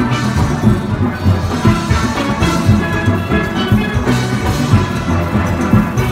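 Steel band playing together: chrome steel pans ringing out the tune over low notes from bass pans made of full oil drums, in a steady, busy rhythm.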